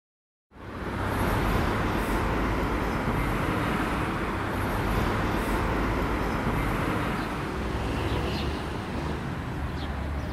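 Steady rumble of road traffic, a city street ambience, starting half a second in.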